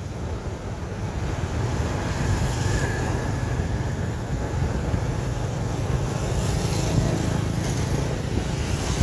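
Road traffic on a busy street, vehicles passing by with a steady low rumble.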